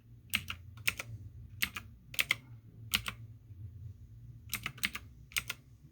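Typing on a computer keyboard: about a dozen scattered keystrokes, many in quick pairs, with pauses between, over a low steady hum.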